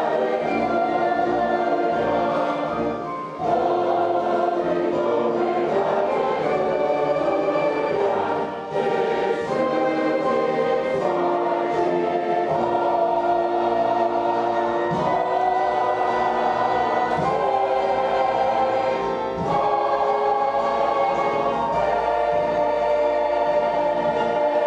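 Background music: a choir singing long held chords, with short dips between phrases.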